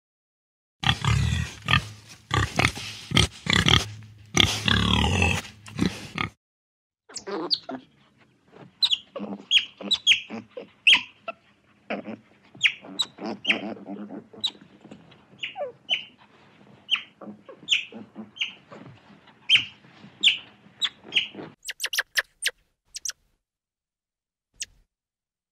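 Pigs grunting and squealing in loud, rough bursts for the first several seconds. After that comes a long run of short, high-pitched calls, each falling in pitch, one or two a second.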